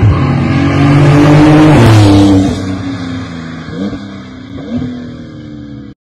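Porsche 911 992 Targa 4S twin-turbo flat-six exhaust, loud for the first two and a half seconds with its pitch dropping about two seconds in. It then runs quieter with two short revs before cutting off suddenly near the end.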